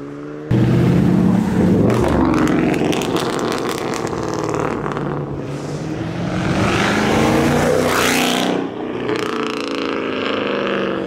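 Car engine close by, jumping loud about half a second in and then revving up and down through several rises and falls in pitch as cars pull out. There is a brighter, louder swell about eight seconds in, then it settles to a steadier note.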